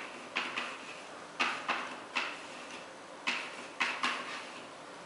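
Chalk writing on a blackboard: an irregular run of about ten sharp taps and short strokes as letters are written.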